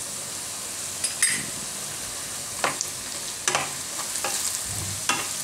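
Cut okra sizzling in hot oil in a kadai, with a few sharp clicks and scrapes of a spatula stirring it.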